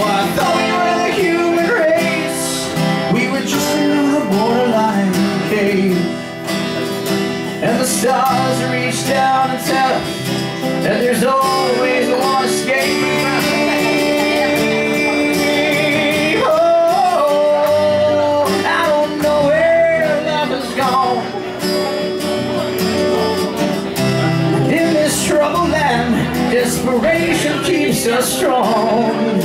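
A live band plays an instrumental passage: guitar accompaniment under a wavering melodic lead line.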